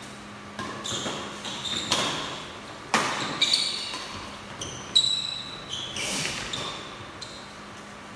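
A series of hard hits: about seven sharp knocks at uneven intervals, each leaving a brief high ringing.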